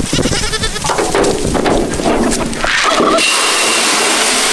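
Goats bleating in short calls as they crowd a feed trough at feeding time, with a steady hiss coming in about three seconds in.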